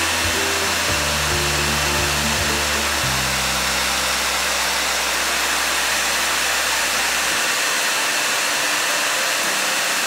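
Handheld hair dryer running steadily on its high setting, a constant rush of air blown down onto a plate. Background music with low held notes plays under it.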